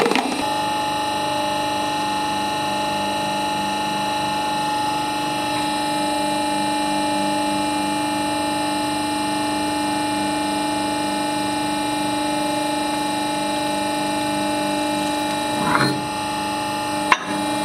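Hydraulic press pump running, a steady hum made of several fixed tones. About 16 s in, a short burst as the ram crushes a red bell pepper, then a single sharp click just before the end.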